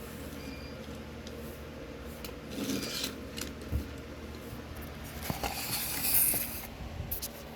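Hands handling toy-car packaging: rubbing and scraping, with a few small clicks and a knock. The loudest scrape comes about six seconds in.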